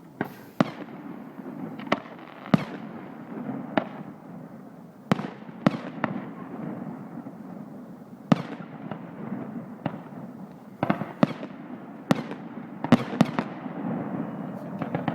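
Aerial fireworks bursting overhead: a dozen or more sharp bangs at uneven intervals, several close together near the end, over a continuous low echoing rumble.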